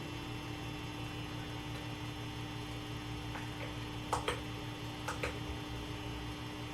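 Steady electrical hum in the rewired guitar's signal, a low buzz with a higher steady tone over it, unwanted noise that does not change as the knobs are turned. A few faint clicks come about four and five seconds in.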